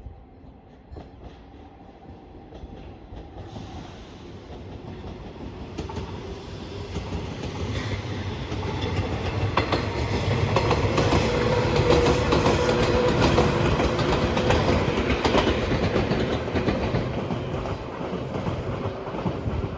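A train approaching and passing close by. The rumble builds over several seconds and is loudest about halfway through, with wheels clattering over rail joints, then begins to fade near the end.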